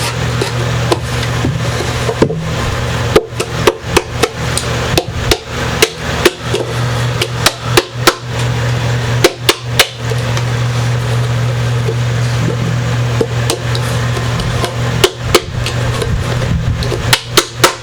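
A hand tool knocking and tapping at the wood around a guitar's pickup hole while its rough edges are cleaned up: quick sharp knocks in clusters of several seconds, twice, over a steady low hum.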